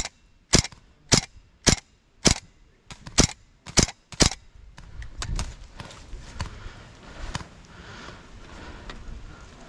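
Airsoft gun firing single shots in a steady string, about two sharp cracks a second for the first four seconds. After that come fainter, scattered shots and shuffling.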